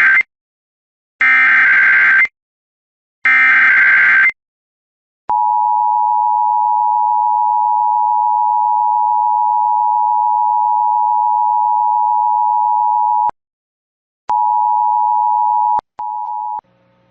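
Emergency Alert System SAME header data bursts, harsh digital screeches repeated at about one-second intervals, followed by the EAS two-tone attention signal (853 and 960 Hz) held steadily for about eight seconds to announce a Required Monthly Test. After a short gap the two-tone sounds again for about a second and a half, then in brief, quieter fragments near the end.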